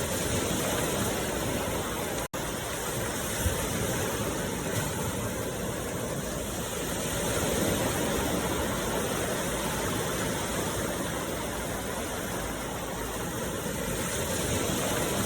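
Steady, even rushing noise with no distinct tones, cut by a brief dropout about two seconds in.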